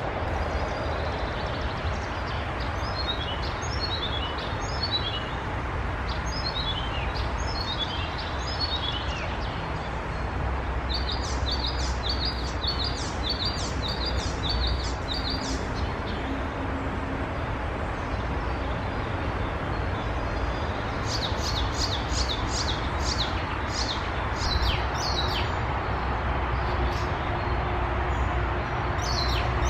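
Songbirds singing in the background in three bouts of short high notes: a run of quick falling notes, then a burst of rapid repeated notes, then another run of falling notes. A steady low rumble of background noise lies underneath.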